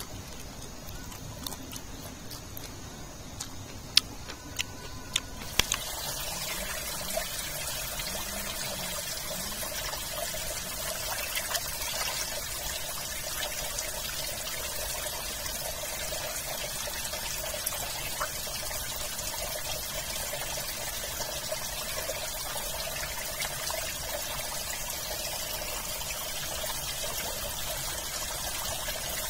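A few crisp bites and chewing clicks, then from about six seconds in the steady running of a shallow rocky stream as raw pig intestines are rinsed by hand in the water.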